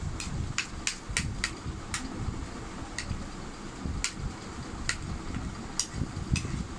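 Spoon clinking and scraping against a plate while scooping up fried rice: about a dozen sharp clicks, coming quickly in the first two seconds and then about one a second.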